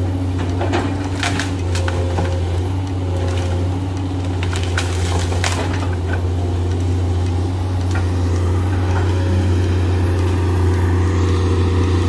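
Komatsu hydraulic excavator's diesel engine running steadily under load as its bucket pushes through brush and small trees, with the cracking and snapping of breaking wood, most frequent in the first half.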